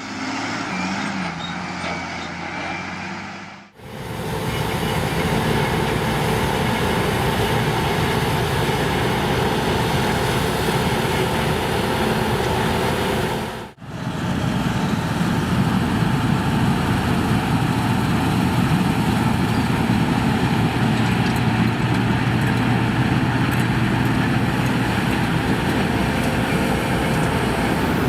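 Claas Lexion combine harvesters running under load while harvesting, a steady heavy diesel-and-machinery drone. It is in three stretches with sudden breaks about 4 and 14 seconds in.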